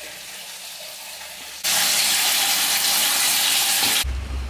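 Water running steadily from a washroom tap or cistern. It starts abruptly, becomes much louder about a second and a half in, and stops suddenly near the end.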